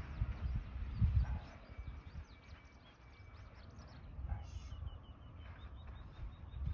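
Gloved hands scuffing and pressing loose soil around seed potatoes in a furrow, making low thuds and rustles, loudest about a second in. Small birds chirp in the background, with a rapid run of high repeated chirps in the second half.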